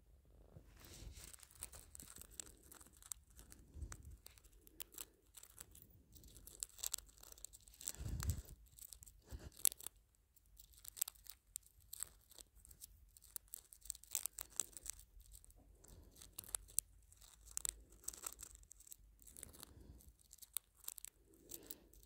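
Faint, irregular crackling and rustling close to the microphone: a Quaker parrot shuffling and nibbling under a fleece blanket. There is a fuller rustle about eight seconds in.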